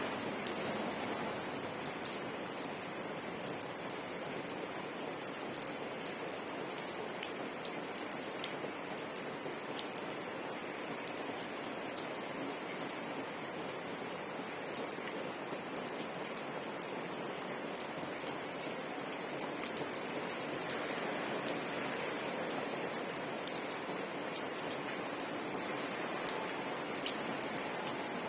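Steady rain falling, with scattered drops ticking on surfaces. A steady high-pitched ringing sits above it throughout.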